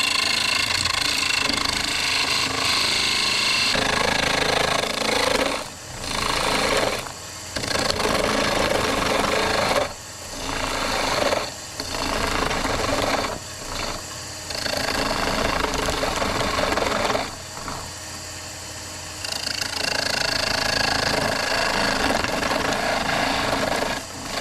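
Wood lathe running while a turning tool cuts into a spinning Nordmann fir blank, a steady hissing cut that stops and restarts several times as the tool is lifted off and put back to the wood.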